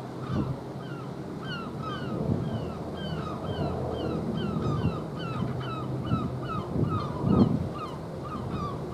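Birds calling over and over, short falling calls a few a second, over wind buffeting the microphone and the wash of the sea, with a stronger gust about seven seconds in.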